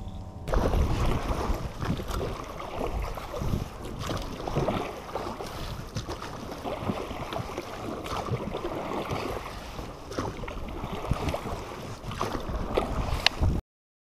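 Water splashing and sloshing around an inflatable rowing boat as it is rowed, with wind buffeting the microphone; the sound cuts off suddenly near the end.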